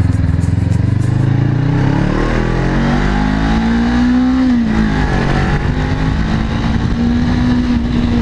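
Honda CBR motorcycle engine running through an aftermarket exhaust with a cut and drilled dB killer, ridden under throttle. The pitch climbs for a few seconds, drops sharply about five seconds in, then holds steady at a higher pitch.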